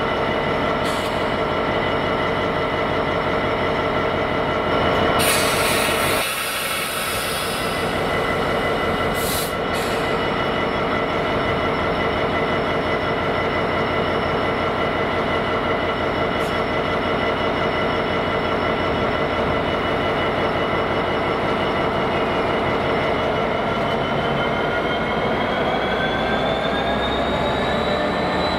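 Class 66 diesel locomotive's two-stroke EMD V12 engine running steadily at idle, with a short burst of hiss about five seconds in. Near the end the engine note rises as the locomotive takes power to move off.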